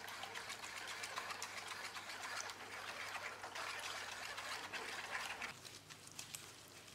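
Lemon juice trickling through a fine metal mesh sieve into a glass bowl, with a wooden spoon scraping and pressing the pulp against the mesh in small ticks and rasps. The sound drops off about five and a half seconds in.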